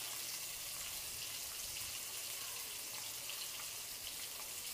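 Marinated fish steaks shallow-frying in a little oil in a non-stick pan: a steady sizzle with a few small crackles.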